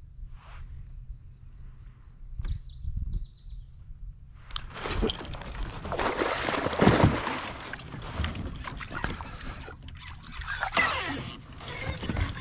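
Water splashing hard at the surface as a bass thrashes in shallow water, starting about halfway through and loudest just after, then tailing off. A short bird call sounds before it.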